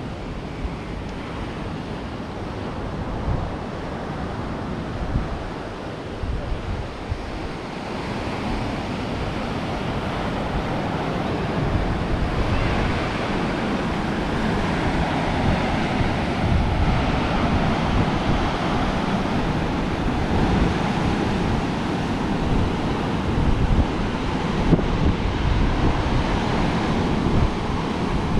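Sea surf washing on the shore, swelling louder through the second half, with wind buffeting the microphone in low gusty rumbles.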